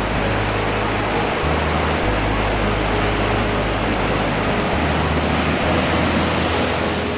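Steady rushing wash of sea surf, breaking waves running on without a break.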